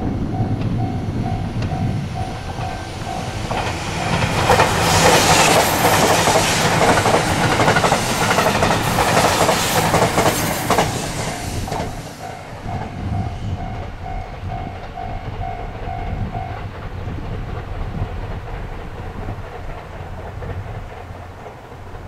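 JR 371 series electric express train passing at speed, its wheels clacking over the rail joints. The sound swells about 4 s in and fades after about 11 s. A level-crossing warning bell rings in an even rhythm of about three strokes a second before and after the train, and stops about 16 s in.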